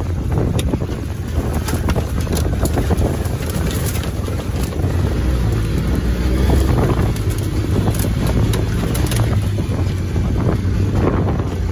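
ATV engine running steadily while riding over a rough grassy field, with wind buffeting the microphone and scattered brief clicks.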